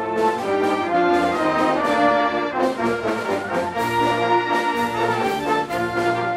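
Concert wind band playing, brass to the fore: trumpets, horns and trombones with woodwinds hold full chords that change every second or so over a low bass line.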